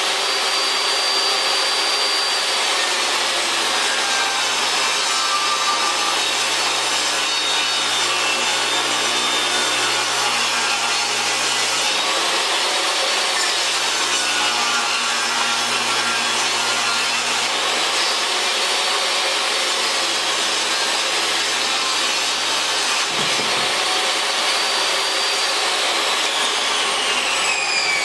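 Table saw ripping a rough-cut board lengthwise, its pitch sagging and recovering as the blade is loaded, over a steady shop vacuum drawing the dust. Near the end the saw is switched off and winds down in a falling whine.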